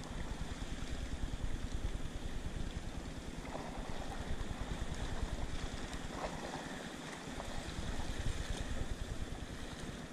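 Wind buffeting the microphone in gusts, a deep rumble that comes and goes, over a steady rushing hiss.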